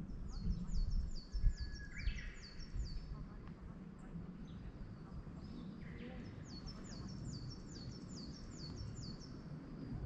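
A small songbird sings a fast run of repeated high notes, about five a second, twice: once in the first two seconds and again from about six and a half seconds to near the end. A few low thumps and rumble sound in the first three seconds.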